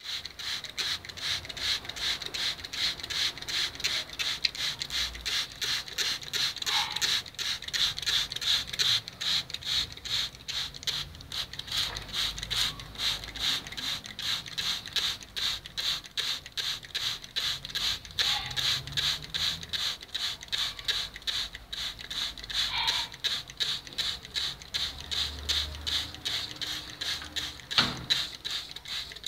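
Hand trigger spray bottle squeezed over and over, a few quick squirts a second, each a short hiss of water mist over seedlings.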